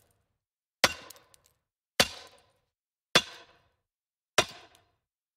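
Four sharp percussive hits, evenly spaced a little over a second apart, each with a short ringing tail and silence between: a logo-animation sound effect.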